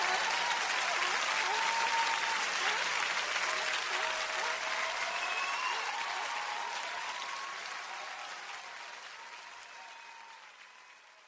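Crowd applauding, with a few voices calling out or whistling over the clapping, fading out gradually.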